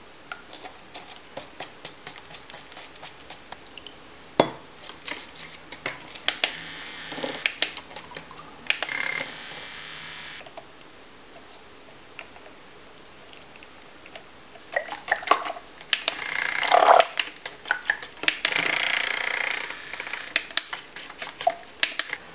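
Small battery-powered handheld mixer running in bursts as it stirs raw cold-process soap batter in a plastic tub, a steady whirring hiss, amid clicks and knocks of the tub and utensils being handled. There are a few sharp knocks about two-thirds of the way in.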